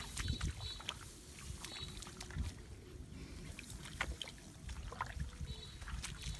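A person wading through shallow, muddy rice-paddy water: scattered small splashes and squelches of feet and hands in water and mud, over a low rumbling noise.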